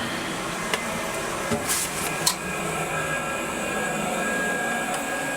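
Steady hum and hiss of the International Space Station's cabin ventilation fans and equipment, with a few brief clicks and knocks in the first half.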